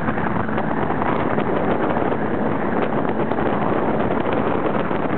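Wind buffeting the microphone on a small outboard-powered boat running at speed, with the motor and rushing water under it as one steady noise.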